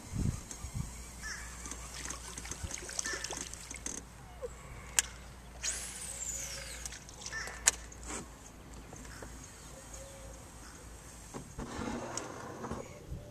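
A cast with a fishing reel: a sharp click, then line whirring off the reel in a whine that falls in pitch as the spool slows, then another sharp click as the reel is engaged. Near the end, water sloshes from a paddle stroke against the aluminium boat.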